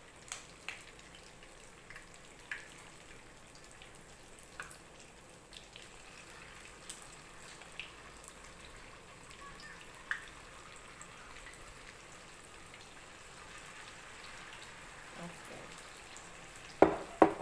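Battered pieces of steamed taro cake frying in shallow oil in a pan: a soft steady sizzle with scattered crackles and pops. A couple of loud knocks come near the end.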